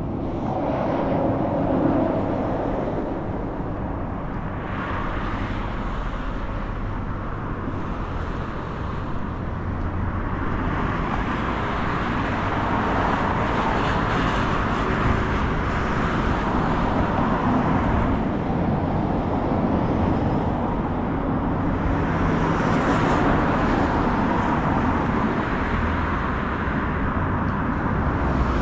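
Street traffic ambience: road vehicles passing by, their tyre and engine noise swelling and fading several times over a steady low hum.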